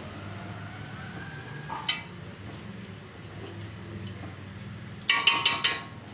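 A metal spoon knocking against a cooking pot while rice is being stirred: one knock about two seconds in, then a short, loud clatter of several ringing strikes about five seconds in, over a low steady hum.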